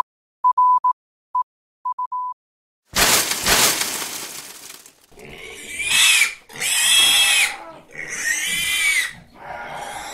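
Morse code beeps at one steady pitch, in a few short groups over the first two seconds. Then a loud rushing whoosh fades out, and a pig squeals three times.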